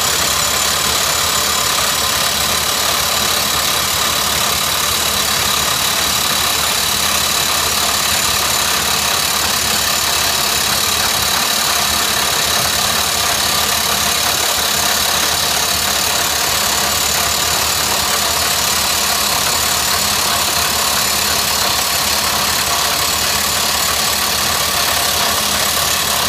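Montabert HC20 hydraulic drifter on an excavator-mounted rock drill, hammering the drill steel into rock without a break. A loud, steady percussive racket that holds the same level throughout.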